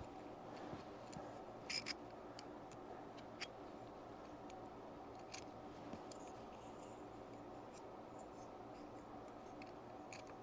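A few faint, sharp clicks and taps from small metal parts of a home-made hose clamp tool being handled and fitted, the clearest a quick double click about two seconds in, over a steady low hum.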